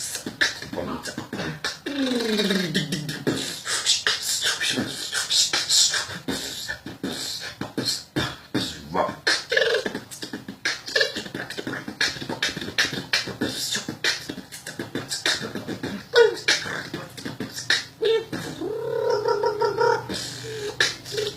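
Vocal beatboxing: fast mouth-made drum hits and clicks, with a pitched vocal sweep falling in pitch about two seconds in and a held pitched tone near the end.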